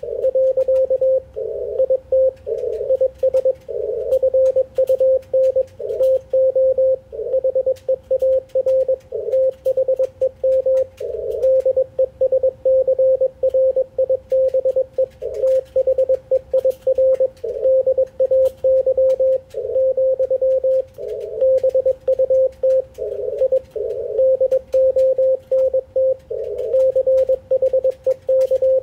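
Morse code (CW) on the 80-metre band, sent and heard through an Icom IC-746PRO HF transceiver: a steady mid-pitched tone keyed on and off in quick dots and dashes, with faint static crackles behind it.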